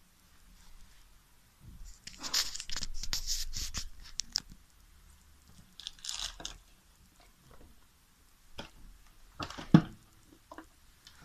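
Packaging being handled and torn open, with bursts of scratchy rustling about two seconds in and again around six seconds, then one sharp knock near the end.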